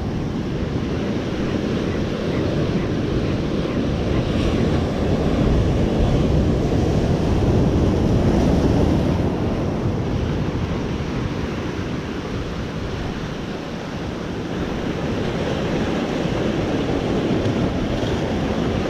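Ocean surf crashing and washing through the rocks of a rocky shoreline, swelling and easing as the waves roll in. Wind buffets the microphone.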